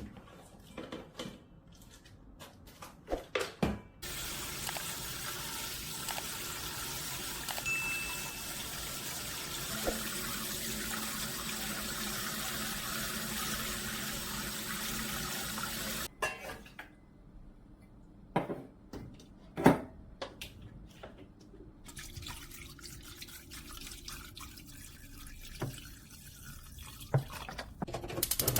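Kitchen tap water running into a sink for about twelve seconds, starting about four seconds in and shut off suddenly. Scattered knocks and clatter of handling come before and after it.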